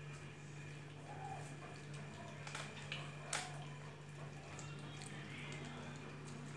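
Kittens eating, with soft wet chewing clicks and smacks scattered through, one sharper click a little past halfway, over a steady low hum.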